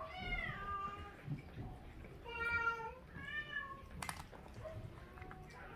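A cat meowing three times: two calls that rise and fall in pitch, with a steady, level one between them. A short sharp click about four seconds in.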